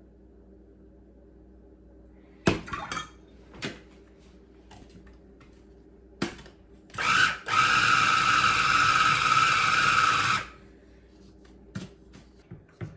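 Food processor running, mixing ice water into pie-crust dough: a short pulse, then about three seconds of steady whirring that stops abruptly. A few sharp knocks and clicks come before it.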